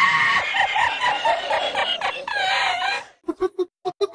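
A cartoon laugh sound effect: a chicken-like clucking cackle for about three seconds, then a quick run of short, evenly spaced "ha" laughs, about four a second.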